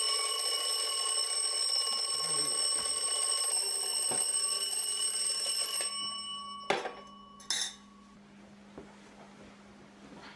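Twin-bell alarm clock ringing steadily, cut off about six seconds in as a hand stops it. Two brief knocks follow.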